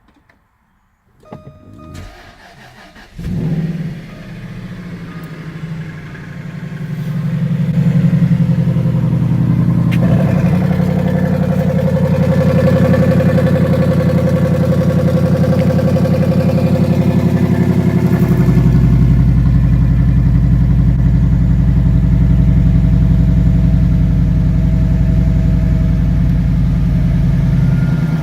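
Jaguar XK 4.2-litre V8 with an electronic exhaust cutout system, cranked by the starter and catching about three seconds in with a brief flare. It then settles into a steady idle that grows louder about seven seconds in. A deeper low drone joins partway through.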